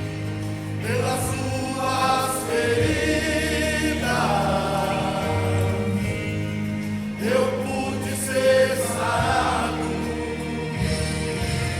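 Choral music: voices singing over sustained low chords, in the style of gospel or Christian church music.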